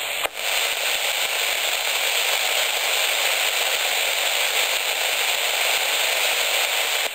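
Steady radio receiver hiss (static) from an amateur radio transceiver's speaker, with no voice coming through. A single sharp click comes just after the start.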